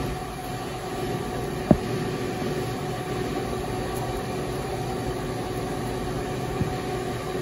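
Steady mechanical hum of commercial kitchen equipment, a fan-driven oven or ventilation. A dull thump about two seconds in, and a fainter one near the end.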